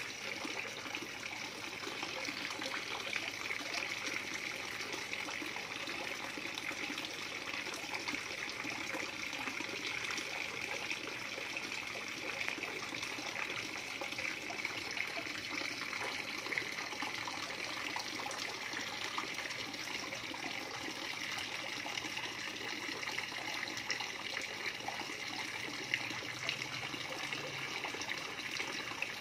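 Steady trickling and bubbling of water in a small fish pond.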